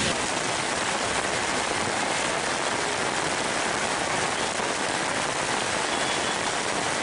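Heavy rain pouring down on a wet road, a dense, steady hiss.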